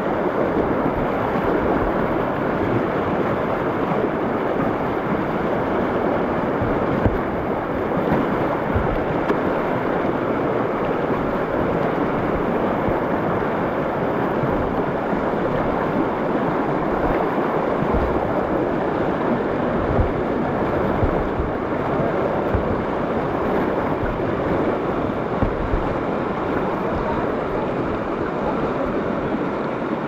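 River rapids rushing, a steady, dense water noise with no let-up. Short low buffets of wind hit the microphone throughout.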